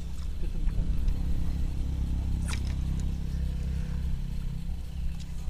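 A small engine running steadily off camera: a low hum that is strongest through the middle and eases near the end, with one short click about two and a half seconds in.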